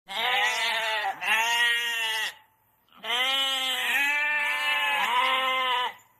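Sheep bleating: two bleats of about a second each, a short pause, then a longer, wavering run of bleating.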